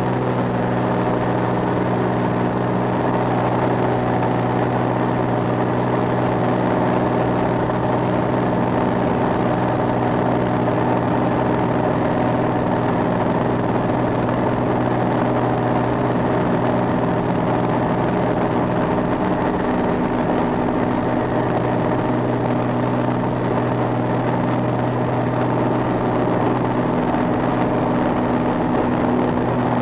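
Engine and propeller of a small single-engine aeroplane running at a steady speed, heard from inside the cockpit: an even drone of engine tones that doesn't change in pitch or loudness.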